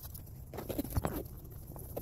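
A quick cluster of light knocks and taps about halfway through, with a few fainter taps around it.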